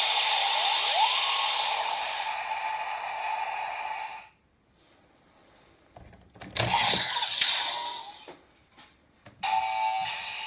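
Electronic sound effects played from a Bandai DX Kamen Rider Build transformation toy's speaker: a steady electronic sound that cuts off about four seconds in, then after a pause a few short sounds with sharp clicks, and another steady electronic tone starting near the end.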